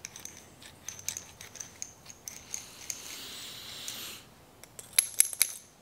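Small metal parts being handled: light clicks and rubbing from a 1-inch hole saw and its arbor being turned in the hands. A soft rustle runs for about a second midway, and a quick run of four or five sharp clicks comes near the end.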